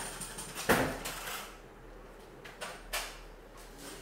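A few short knocks and clicks, the loudest about a second in and another near the three-second mark, with a faint background hum between them.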